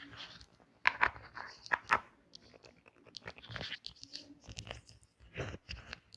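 Irregular clicks, taps and crinkles of things being handled by hand, the sharpest cluster about a second in and another near the end.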